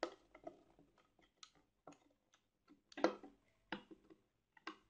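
Scattered light clicks and knocks of hands working a mains cable and plastic electrical fittings on a wooden board, with a few louder knocks from about three seconds in.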